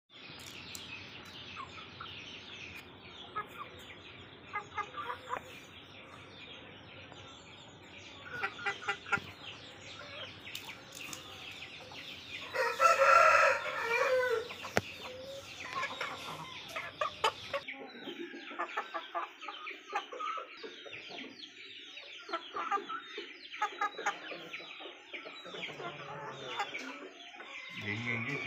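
Game-fowl rooster crowing once, loud and about a second and a half long, about halfway through, with short clucking calls from the chickens before and after.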